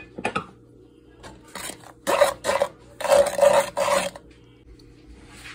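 Wooden spatula scraping and stirring mung bean flour into syrup in a non-stick pan, in a series of gritty scraping strokes. The longest and loudest stroke comes about three seconds in.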